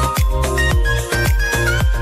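Background music with a steady beat: an electronic dance track with a deep, falling bass drum about twice a second under a melody.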